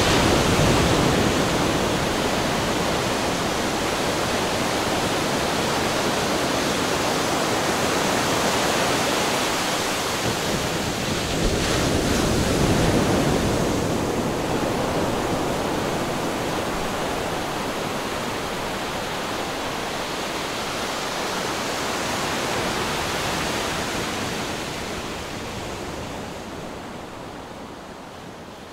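Ocean waves washing onto a shore: a continuous rush of surf that swells and eases slowly, with a stronger surge about twelve seconds in, then fades out near the end.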